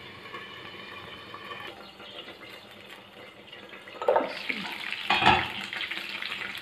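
Beef kababs sizzling softly in a covered pan, cooking in the fat they have released as the yogurt liquid dries off. About four seconds in, the aluminium lid is lifted with a clank, a second clank follows a second later, and the sizzle is louder with the pan open.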